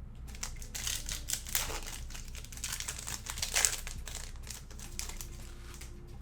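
Plastic wrapper of a trading card pack being torn open and crumpled: a run of irregular crinkling crackles, loudest about three and a half seconds in.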